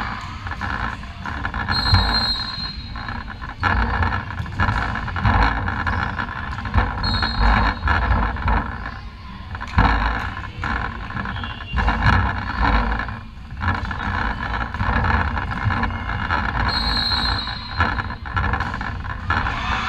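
Indoor volleyball match in a large, echoing sports hall: a steady wash of hall noise with scattered knocks from the ball and players, and short high whistle blasts about 2, 7 and 17 seconds in.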